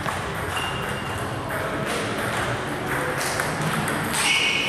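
A table tennis ball ticking in a few scattered, light bounces over steady background noise. A voice comes in near the end.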